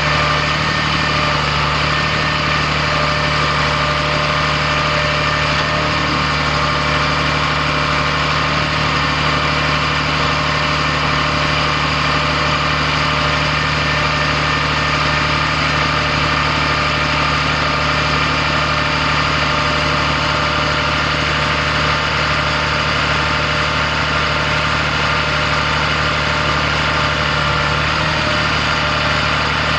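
Cummins ISB 5.9-litre six-cylinder turbo diesel engine idling steadily at an even speed.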